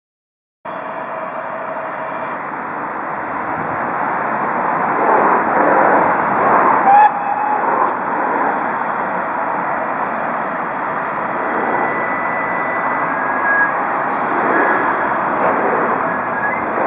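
GWR 2884-class 2-8-0 steam locomotive No. 3850 pulling away from a station: a steady rush of exhaust and escaping steam, growing louder over the first several seconds.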